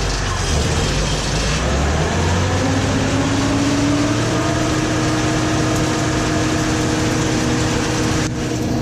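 Combine engine running steadily; about two and a half seconds in its pitch rises over a second or so and then holds, with a short break near the end.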